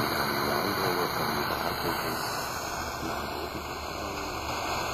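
Portable PLL-synthesized world-band radio tuned to 90.0 MHz FM, playing a weak signal: steady static hiss with a faint voice underneath.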